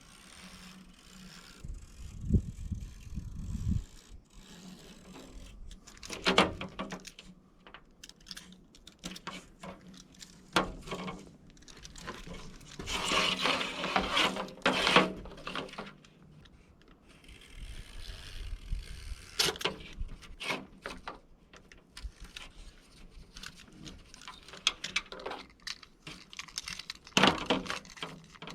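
Hand work on a window screen and its frame: irregular scraping, rubbing and clicking, with a longer stretch of steady scraping about halfway through.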